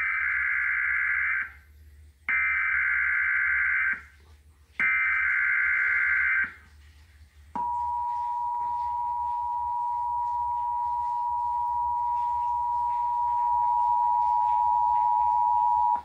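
Emergency Alert System broadcast of a test tornado watch, played through a television speaker. It opens with the three SAME header data bursts, each a shrill warbling screech about a second and a half long, and about seven and a half seconds in the steady two-tone EAS attention signal begins and holds.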